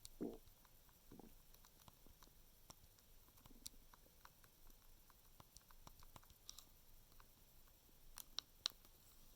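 Stomach gurgling: a short low gurgle right at the start and a softer one about a second later, over near silence with faint scattered clicks, a few sharper clicks near the end.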